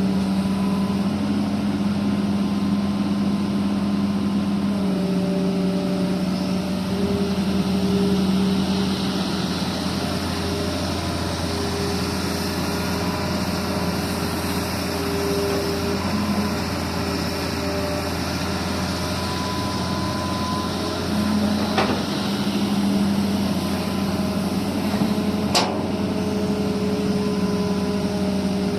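Heavy diesel engine of an excavator running steadily, its note shifting slightly as it works. Two sharp knocks come in the last third.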